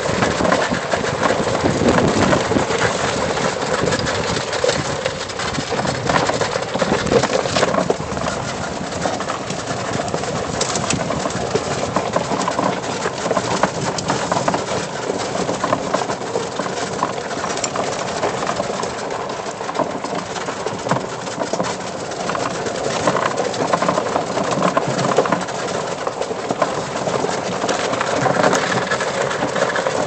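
Lifted E-Z-GO golf cart on 22-inch tires driving along a leaf-strewn dirt trail: the steady running noise of the cart and its tyres on the trail.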